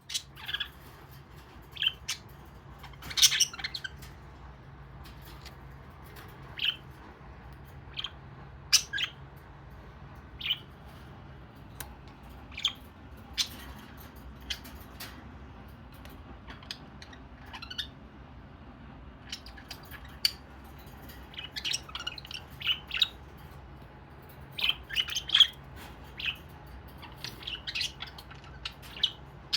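Pet budgerigars chirping: short, sharp calls scattered through, coming thicker and faster in the last third.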